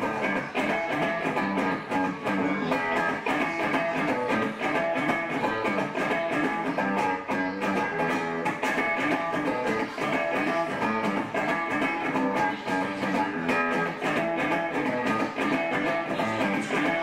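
Electric guitar played with rapid, continuous strumming and picking, without pause.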